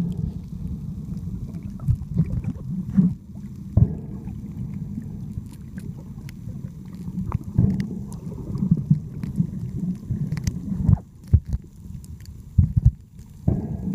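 Muffled low rumble of moving sea water, broken by scattered short knocks and thumps.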